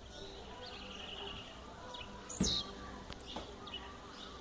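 Blue-black grassquit (tiziu) singing: one short buzzy note sliding downward about halfway through, with softer high chirps before it. A short knock sounds at the same moment as the note.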